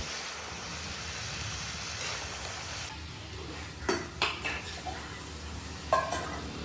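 A metal slotted spoon clinks against a steel karahi and a steel plate as cooked chicken pieces are lifted out. A few sharp clinks come past the halfway point and one more near the end, over a steady low background noise.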